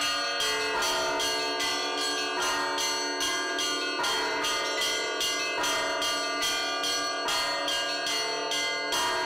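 A set of church bells rung together in a continuous, fast peal. Several bells of different pitch sound at once, struck about three to four times a second, and each keeps ringing under the next strikes.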